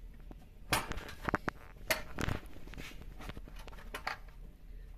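Knocks, clicks and scrapes from handling a toaster's sheet-metal panel while a switch is pushed into its slot. They come in a cluster from about one to two and a half seconds in, with one more knock near four seconds.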